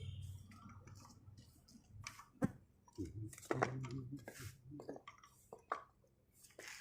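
Scattered clicks and knocks of tools and metal parts being handled while a rotavator is worked on, with one sharp knock about two and a half seconds in and a quick cluster a second later.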